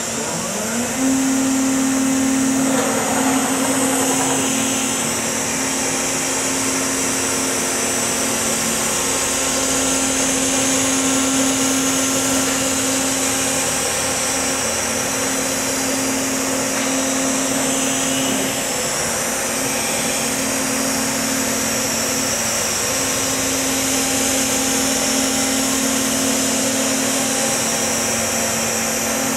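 CNC router spindle spinning up about a second in, then running steadily with a high whine while a quarter-inch cutter routes a groove. The pitch dips briefly a few times as the cut goes on.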